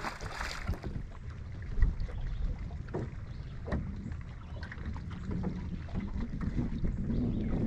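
Wind rumbling on the microphone on an open boat, with a few small knocks and taps and one sharper thump just under two seconds in.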